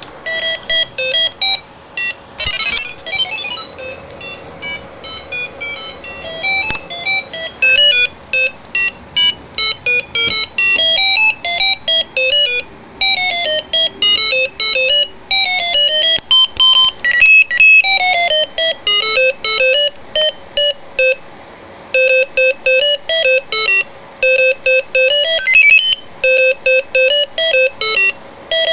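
Arduino microcontroller playing an 8-bit style square-wave melody through a small bare loudspeaker: a quick tune of short, clean beeping notes with brief gaps between them.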